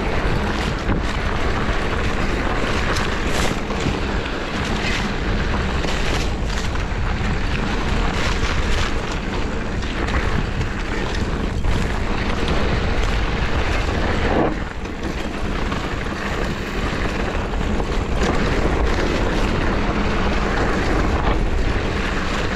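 Steady rush of wind on the microphone and tyre noise from a mountain bike rolling over a dirt singletrack, with frequent short knocks and rattles from the bike going over bumps.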